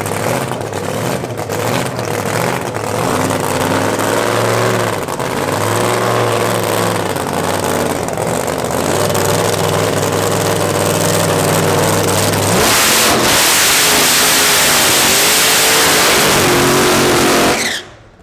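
Drag racing car's engine revving up and down, then going to full throttle about twelve and a half seconds in as the car pulls away down the strip, ear-piercingly loud; the sound drops away sharply near the end.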